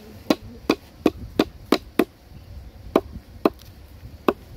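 A large kitchen knife chopping green stalks on a round wooden chopping board: about nine sharp knocks of blade into wood, quick at first, then slower with gaps.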